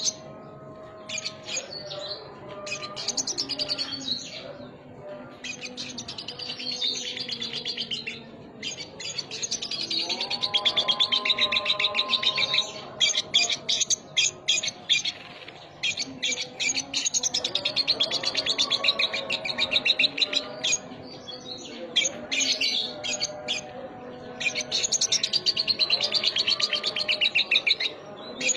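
Sogon (sogok ontong) songbird singing in long bursts of fast chattering trills and chirps, a song with lovebird-style phrases mixed into it.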